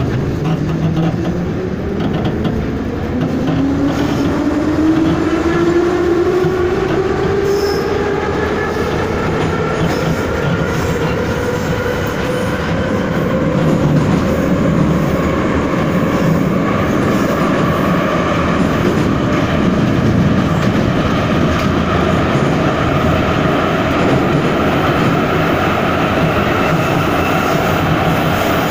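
Ezh3 metro car heard from inside the car as it accelerates. The traction motor whine rises steadily in pitch over the first ten seconds or so, then holds about level at running speed, over the continuous rumble of the wheels on the rails.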